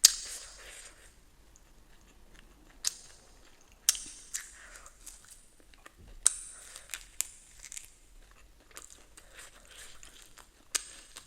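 Close-miked eating: a handful of sharp bites, each followed by crunchy, crackly chewing, with quieter chewing in between.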